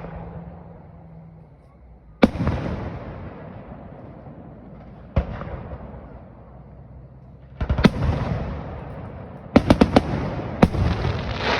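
Fireworks display: a single boom about two seconds in and another near five seconds, then quick clusters of bangs toward the end, each followed by a long rolling echo.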